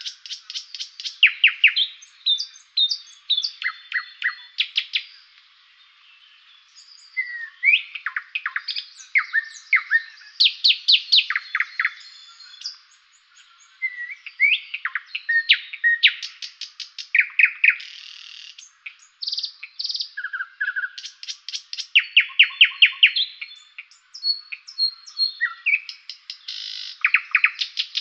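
Songbirds singing: rapid trills of quick repeated notes, short whistles and downward-slurring chirps, with brief lulls between phrases.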